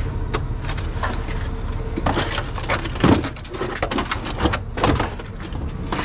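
Stainless steel panels knocking and clattering against each other and the metal tray as they are lifted and stacked, several sharp clanks in the second half. A vehicle engine runs steadily underneath.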